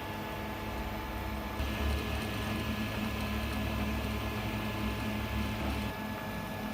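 FDM 3D printer running: a steady machine hum with fixed tones, and from about a second and a half in to about six seconds in a louder whirring hiss and rumble as the print head moves.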